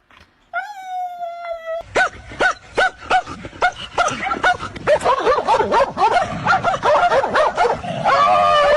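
A dog calling: one long drawn-out call, then a fast, ever denser string of short high barks and yips, ending in another long drawn-out call.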